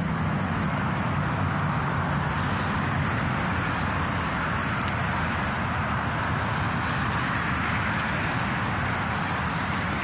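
Motorway traffic noise: an enormous, steady rushing and rumbling of many vehicles on the Autobahn.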